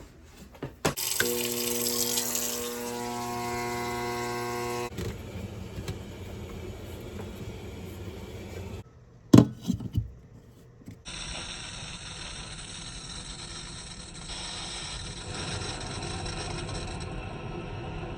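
Water running from a kitchen faucet into the sink. A steady hum sounds from about a second in for about four seconds, and a loud knock with a short clatter comes near the middle.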